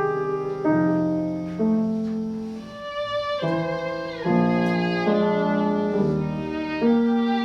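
A viola playing a slow melodic passage of held notes with vibrato, accompanied by piano chords. The student is working on keeping the vibrato narrow and under the pitch.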